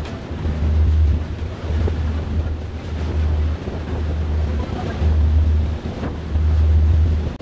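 Wind buffeting the microphone aboard a moving ferry, in heavy low gusts lasting about a second each, over a steady rush of wind and water.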